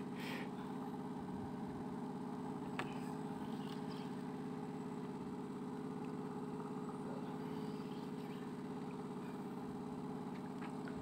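An engine aboard a fishing boat running with a steady, even hum, with one faint click about three seconds in.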